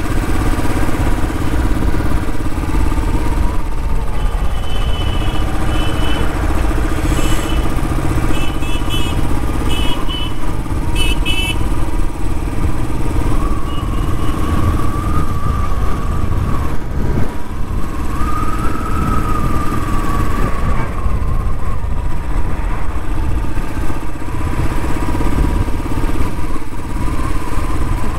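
Royal Enfield motorcycle running steadily on the move, with wind rushing over the helmet-mounted microphone.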